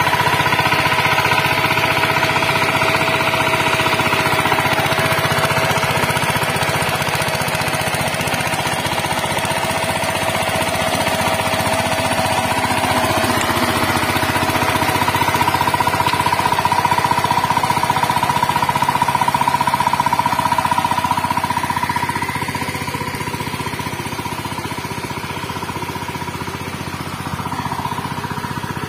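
Two-wheel power tiller's single-cylinder diesel engine running steadily with a rapid thudding beat, pulling a ridging plough through the soil, a little fainter toward the end.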